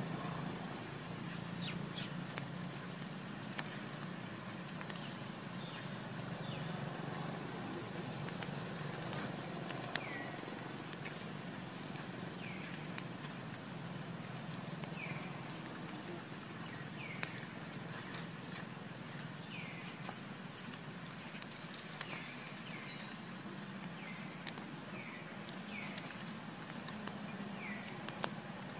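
Outdoor ambience: a steady low hum, with short falling chirps every second or two and scattered sharp clicks.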